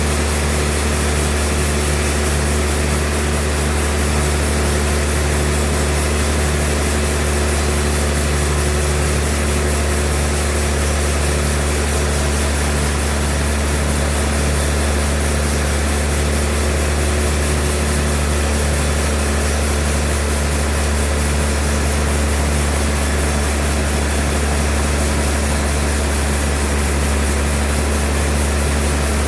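Sawmill machinery running with a steady, unchanging low engine drone and hum, with no cutting strokes or breaks.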